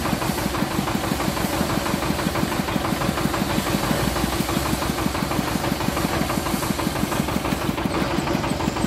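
Motor of a Hindustan sugarcane juice crusher running steadily, with a fast, even knocking beat.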